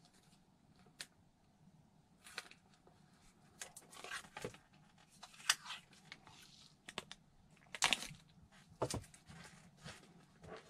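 Foam glider wing pieces being handled: irregular rustling scrapes of foam rubbing against foam, with light knocks as the pieces are set down on a cork board. A few louder knocks come around the middle and again near the end.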